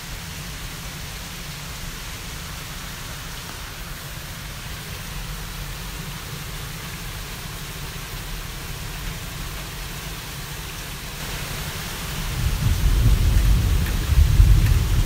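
Thunderstorm: steady rain hissing, then a deep roll of thunder that builds about three quarters of the way through and grows loud toward the end.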